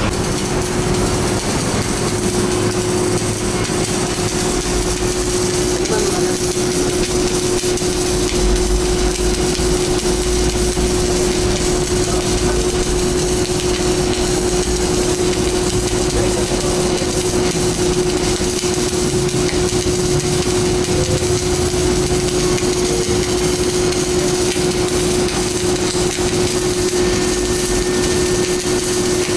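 CO2/MIG wire-feed welding arc sizzling and crackling steadily, over a steady hum.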